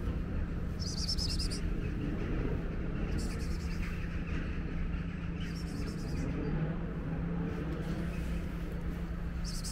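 Short, high buzzing chirps, each about half a second of rapid pulses, from an insect, repeating four times at intervals of two to three seconds over a steady low street hum.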